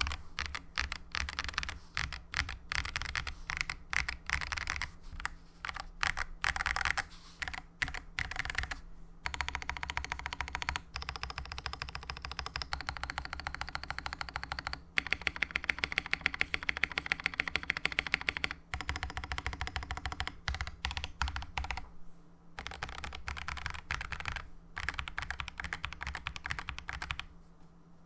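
Fast typing on a mechanical keyboard, a Meletrix Zoom TKL with an aluminium plate, plate foam, lubed Gazzew Boba U4T tactile switches and GMK keycaps: dense, rapid keystrokes with a couple of brief pauses.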